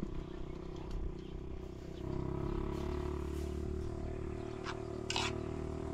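A steady low mechanical hum that gets louder about two seconds in, with a few light clicks of a utensil against a pan near the end.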